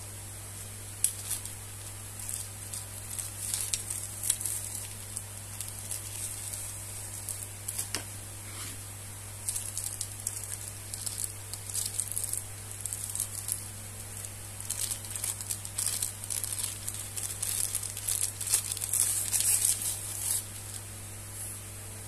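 Clear plastic wrapping crinkling and a fabric pouch rustling in irregular bursts as a long selfie stick is handled and unwrapped, busiest and loudest near the end, over a steady low hum.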